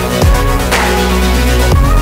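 Electronic background music with a heavy bass line and a regular beat.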